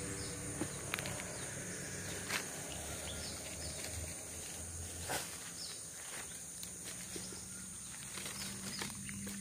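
Tropical forest ambience: a steady high-pitched insect drone, with a few sharp crackles of footsteps on dry leaf litter.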